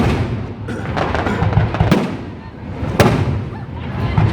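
Aerial fireworks firing at close range: sharp, loud bangs at the start and about three seconds in, a smaller one near two seconds, with low rumbling between them.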